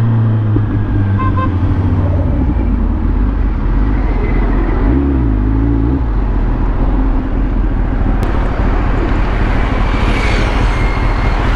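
Sport motorcycle riding on a highway, heard from the rider's position: a steady rush of wind and road noise over the engine note, which wavers briefly about five seconds in, with surrounding traffic.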